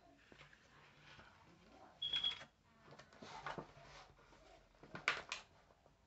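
Thin plastic takeout sushi tray and its clear lid being handled and opened: scattered plastic crinkles and clicks, with a short high squeak about two seconds in and sharper clicks around five seconds.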